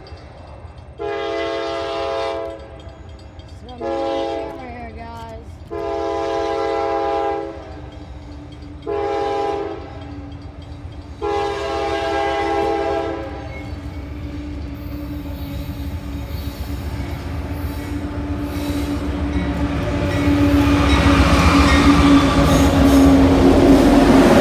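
CSX diesel-electric freight locomotive sounding its horn in five blasts, long and short, the last held longest, as it approaches a grade crossing. The locomotive's engine and wheels then rumble louder and louder as it passes close by.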